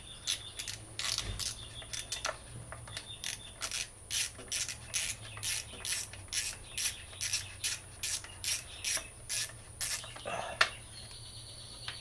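Ratchet wrench clicking in an even rhythm, about three clicks a second, as a bolt is backed out of the generator's alternator end cover. The clicking stops about ten seconds in, followed by a short rattle.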